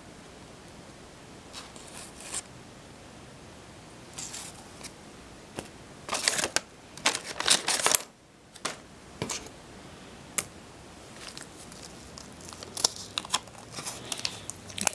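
Waxed-paper wrapper of a vintage trading-card pack being peeled open and crinkled by hand, in irregular bursts of crackling that are densest about six to eight seconds in and again near the end.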